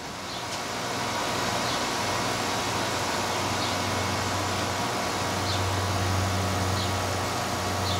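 Steady rushing noise over a continuous low hum, like a fan or motor unit running, growing a little louder in the first second. Faint short high chirps come now and then.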